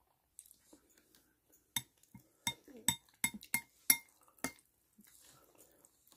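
Metal spoon clinking and scraping against the curry tray while eating, about seven sharp ringing clinks over a few seconds, with faint chewing between.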